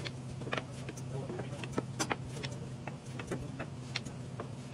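Hard wooden end-grain blocks clacking and knocking against each other and the sled as they are shuffled and pushed into place by hand, in irregular sharp clicks. A steady low hum runs underneath.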